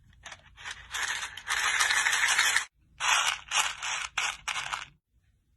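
Slime being worked by hand: a run of crackling, scraping bursts, with a short break about two and a half seconds in, stopping about five seconds in.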